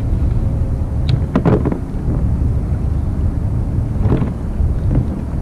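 Wind buffeting the microphone on open water, a steady low rumble, with two brief noisy swishes about a second and a half and four seconds in.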